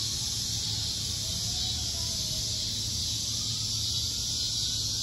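A steady, high-pitched insect chorus, such as cicadas or crickets, over a low, constant rumble.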